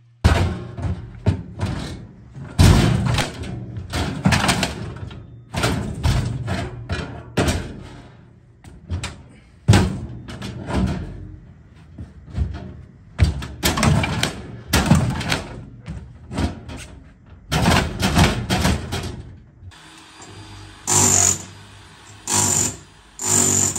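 An ATM's steel cabinet being hammered and pried open with an electric demolition hammer and a long pry bar: irregular clusters of loud metal knocks and bangs, then near the end the demolition hammer runs in a few short bursts against the casing.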